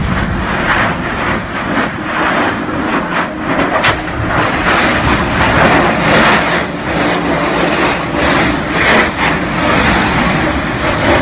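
Erupting Kilauea fissures making a continuous rumbling roar, broken by irregular bursts as lava spatters out, with one sharp crack about four seconds in.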